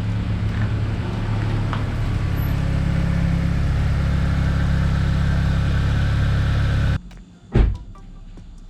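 Steady low rumble of a car engine running, which stops abruptly about seven seconds in, followed by a single thump.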